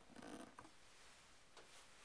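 Near silence: faint room tone with a soft knock in the first half second and a single small click about a second and a half in.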